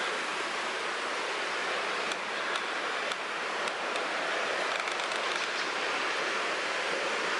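Steady rushing noise, with a few faint clicks about two to five seconds in.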